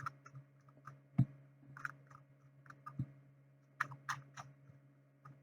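Irregular soft clicks and small taps, with two low thumps, about a second in and at three seconds, over a steady low electrical hum.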